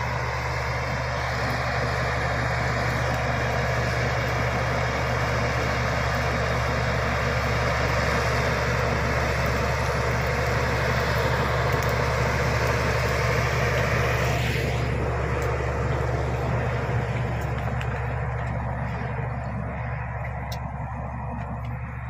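Shantui crawler bulldozer's diesel engine running under load as it pushes soil and brush, growing louder as it nears. About fifteen seconds in the higher-pitched noise cuts out, leaving the steady low engine note, which fades toward the end.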